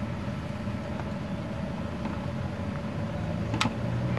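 Steady low mechanical rumble with faint steady tones, and a single sharp click about three and a half seconds in as a hand works a metal hose fitting.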